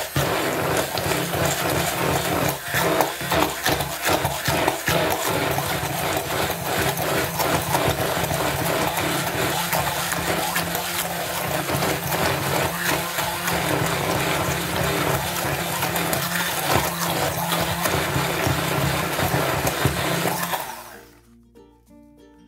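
Immersion (stick) blender running in a thick cottage-cheese, egg and sugar batter in a plastic bowl, then switched off abruptly near the end, leaving faint background music.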